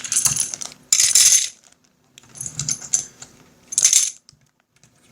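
Small hard game counters clinking and clattering as they are handled, in four short bursts with pauses between.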